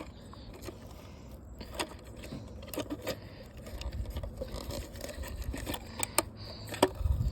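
Scattered clicks and light rattles of a broken plastic alarm clock and its loose parts being handled, over a low rumble that swells about halfway through.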